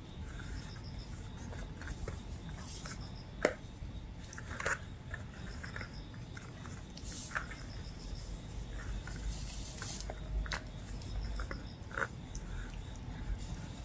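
Shih Tzu puppies playing in a tangle of cotton rope cords on a floor mat: rope rustling and dragging, with light scattered taps and clicks and one sharper click about three and a half seconds in.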